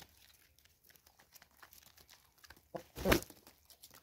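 Chickens pecking grain off a concrete step: a run of quick taps and crunchy scratching, with one brief louder sound about three seconds in.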